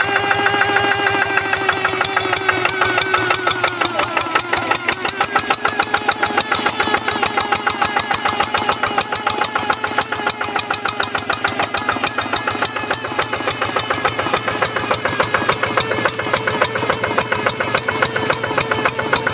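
Quick G1000 Boxer hand tractor's single-cylinder diesel engine running under load with a fast, even chugging as it works a muddy paddy. A higher whine sits over it for the first few seconds, then fades.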